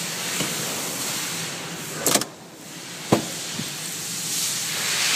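Two clunks from the second-row seat's slide-and-latch mechanism, about a second apart, the second a sharp click, over a steady hiss.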